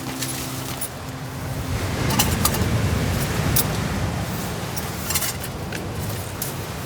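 Background music ending about two seconds in, followed by a low, steady rumble of strong wind with a few light, crisp clinks and rustles scattered through it.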